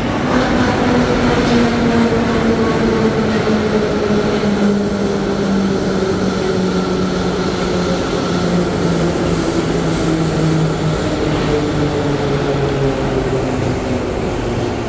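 Vintage Moscow Metro retro train pulling into a station and slowing, a whine falling steadily in pitch over wheel and rail noise as it brakes.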